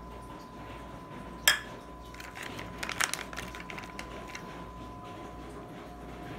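Kitchen handling noises as a spice container and utensils are set down and moved around the mixing bowl: one sharp click about a second and a half in, then a quick flurry of small clicks and taps about three seconds in. A faint steady high hum sits underneath.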